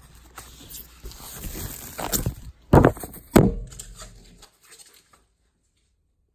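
Camera unboxing handling noise: packaging rustling, then two loud thumps about three seconds in. The sound cuts off about five seconds in.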